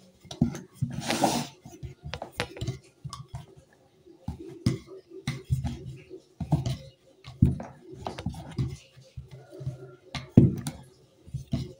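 Wooden rolling pin rolled back and forth over momo dough on a wooden board: a low rumble with light knocks and clicks, repeating with each stroke, as dumpling wrappers are rolled out.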